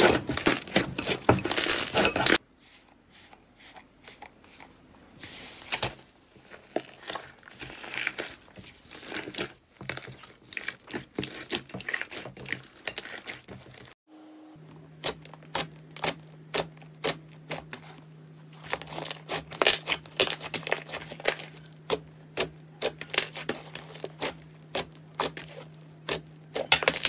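Slime being handled, squeezed and pressed, giving rapid crackling clicks and pops, in several short clips that cut from one to the next.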